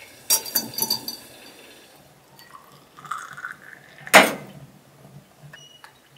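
Glass tea glasses in metal holders clinking sharply several times as they are set down on a brick stovetop, then a short rising sound of liquid filling a vessel, a loud knock about four seconds in, and a few small clicks near the end.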